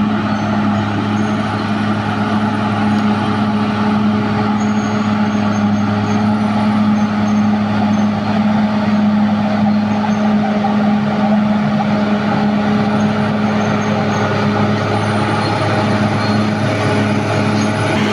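Caterpillar D6R XL bulldozer's diesel engine running at steady, constant revs, a loud even drone.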